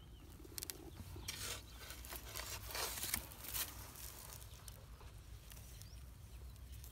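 A hand scraping and digging in dry, crumbly soil inside a field-crab burrow, with dry straw rustling. A cluster of soft, gritty scrapes comes in the middle, over a faint low rumble.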